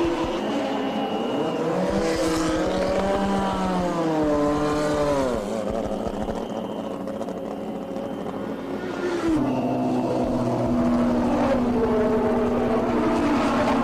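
Formula One racing car engine at high revs, its pitch climbing and then dropping steeply as it brakes and shifts down about five seconds in. It holds lower for a few seconds, then climbs again under acceleration.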